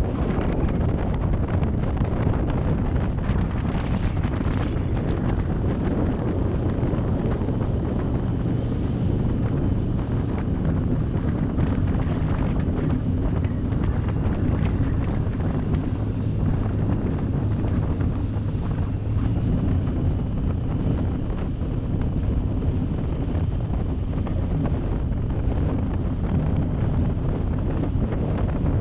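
Wind rushing over the microphone and water noise from a 26-foot Cheetah Wildcat deck boat under way at about 25 to 35 mph, with a steady engine drone underneath.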